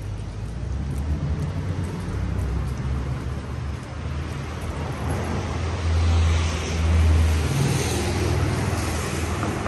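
Road traffic on a rain-wet city street: a steady low rumble. A vehicle passes about six to eight seconds in, its tyres hissing on the wet road as it swells and fades.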